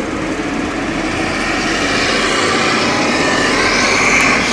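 Steady vehicle noise heard from inside a car cabin, a rushing hum that grows gradually louder.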